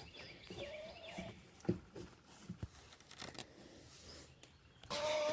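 Faint scattered clicks and taps, then a chicken's drawn-out call about five seconds in.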